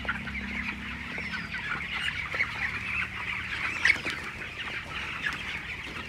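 A large flock of broiler chickens, about 26 days old, cheeping and clucking in a constant chorus of high calls.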